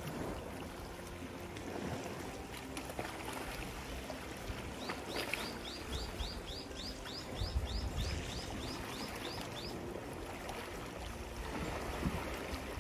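Shallow sea water lapping and washing gently at the shore. A bird calls a quick run of about fifteen short, repeated high notes, about three a second, for some five seconds in the middle.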